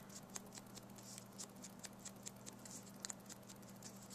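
Faint, irregular soft taps and rustles of a sponge dauber dabbing ink around the edges of a cut-out cardstock flower held in the hand, over a low steady electrical hum.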